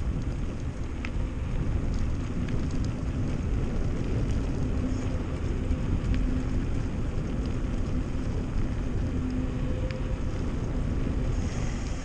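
Wind buffeting the camera microphone and tyre rumble as a mountain bike rolls downhill on a rough village lane, with a few faint clicks and rattles.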